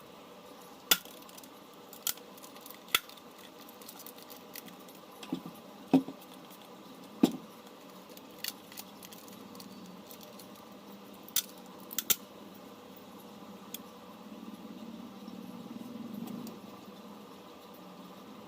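Sharp, separate clicks and taps of small tools and phone parts being handled on a repair bench, about a dozen at uneven intervals, with a soft rubbing noise for a couple of seconds near the end.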